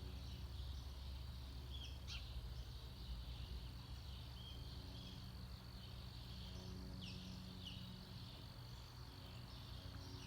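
Faint outdoor ambience: a few short falling bird chirps, about two seconds in and twice near seven to eight seconds in, over a steady high hiss and a low hum.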